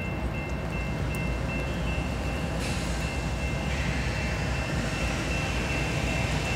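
CN freight train's diesel locomotives approaching: a steady low engine rumble that grows slowly louder, with a rushing hiss from the rolling train building up from about three seconds in. A thin, steady high tone sounds throughout.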